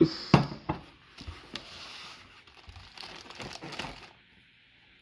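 Plastic shrink wrap crinkling as a tin can is pulled out of a shrink-wrapped tray of cans, with several sharp clicks and knocks. It stops about four seconds in.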